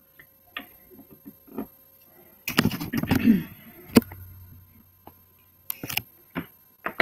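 Handling noise from a small framed whiteboard being picked up and held to a webcam microphone: scattered clicks, a rustling clatter about two and a half seconds in, then a few sharp knocks.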